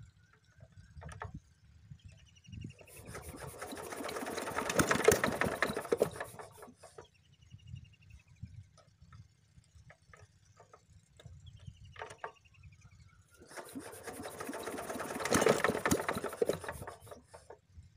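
Small single-cylinder diesel engine on an irrigation water pump being hand-cranked in two attempts. Each attempt speeds up into a loud, fast rattle of knocks, then dies away after about four seconds without the engine keeping running. Short bird chirps come between the attempts.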